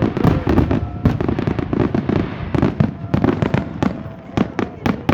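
A fireworks display, with bangs and crackles following one another in rapid succession.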